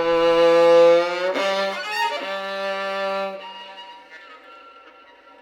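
Experimental contemporary music on bowed strings: a few long held notes, changing pitch about a second and two seconds in, with a lower note sounding underneath, then growing softer toward the end.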